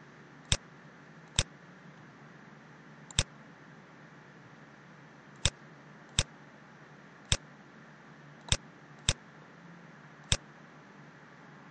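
Computer mouse clicks: nine single sharp clicks at uneven intervals, over a faint steady hiss.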